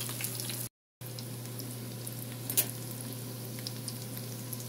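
Panko-breaded shrimp frying in shallow vegetable oil in a skillet: a steady sizzle with fine crackling, with the heat turned down because the oil had been running too hot. The sound drops out for a moment just under a second in, and there is one sharp click about two and a half seconds in.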